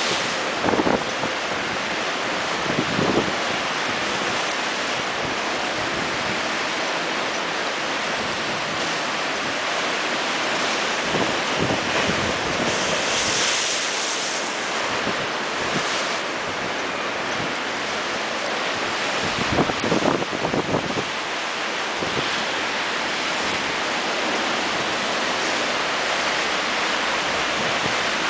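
Rough sea breaking against a seafront wall at a high spring tide: a steady rush of surf with several louder surges as waves hit the wall, and wind on the microphone.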